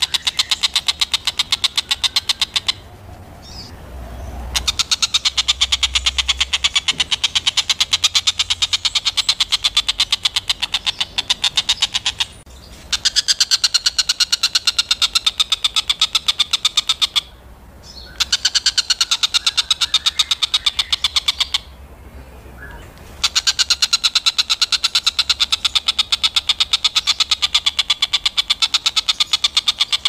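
Oriental dollarbird (tengkek buto) calling in long runs of rapid chattering notes, broken four times by short pauses.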